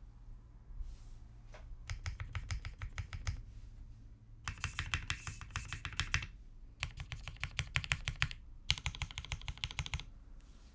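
Typing on a TGR Jane V2 custom mechanical keyboard with lubed linear switches (Tealios V2 housings with Gateron Black stems) on a polycarbonate plate. There are four quick runs of keystrokes with short pauses between them, beginning about two seconds in and ending shortly before the end.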